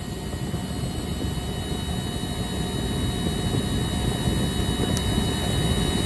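Steady low rumble of running HVAC equipment with faint high-pitched whine tones above it, growing a little louder over the first few seconds.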